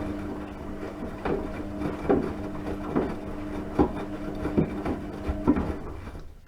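Washing machine running, its motor humming steadily while the tumbling drum gives a clunk about every 0.8 seconds. The machine winds down and goes quiet near the end.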